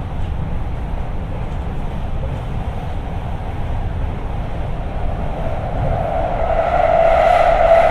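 Guangzhou Metro Line 3 B4-series train heard from inside the car while running, a steady low rumble. A steady whine comes in about five seconds in and grows louder to the end.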